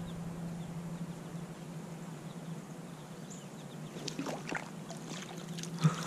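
Shallow creek water splashing and sloshing as a landing net is scooped through it around a trout, with a few sharp splashes in the second half over a faint steady background.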